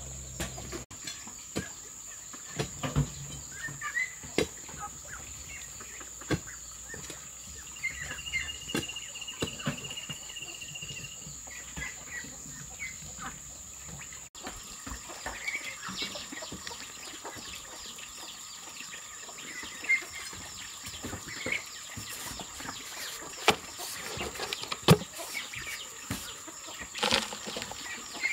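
Digging in a dirt bank by hand: a digging tool's blade striking and scraping into soil, with loose earth scooped and knocked about in irregular knocks and scrapes. Hens cluck in the background, and a steady high-pitched whine runs throughout.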